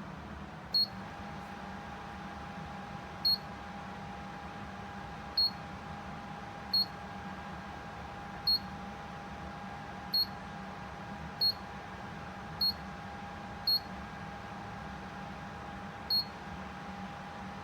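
Electronic beeper of a Pro Breeze tower fan giving about ten short, high beeps at uneven intervals, the sound of its settings being stepped through. A steady fan hum runs underneath.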